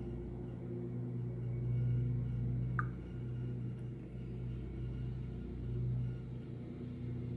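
Steady low electrical hum at constant pitch, swelling and fading slightly, with one short faint clink about three seconds in.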